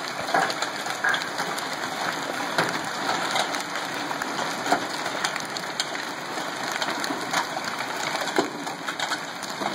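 Heavy hailstorm with rain: a dense, steady hiss of falling rain and ice, broken by scattered sharp cracks of large hailstones striking hard surfaces.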